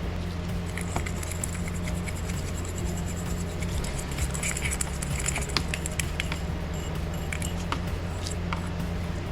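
Light metallic clicks, taps and scraping from hand-cleaning a small-engine carburetor float bowl, over a steady low hum.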